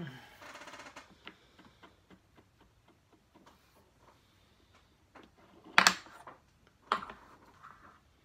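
Wooden Jenga blocks clicking and tapping as a block is worked loose from the tower: a quick rattle in the first second, scattered light ticks, then two sharper knocks about a second apart near the end.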